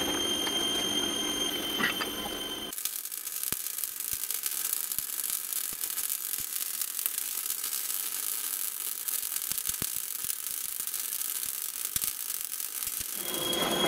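CO2-shielded MIG (semi-automatic) welder building up weld on a worn steel shaft that turns slowly in a lathe: a dense crackling hiss that starts about three seconds in and stops just before the end. Before the arc strikes, a steady high whine comes from the lathe turning at very low speed on its frequency-inverter drive.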